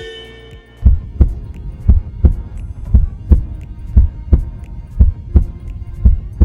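Heartbeat sound effect: a steady lub-dub of paired low thumps, about one pair a second, starting about a second in.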